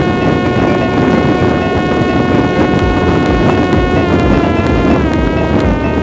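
Parrot Disco fixed-wing drone's electric motor and propeller whining at a steady pitch, with wind rushing over the onboard microphone. About four seconds in, the pitch starts to waver and dip slightly as the power is eased back.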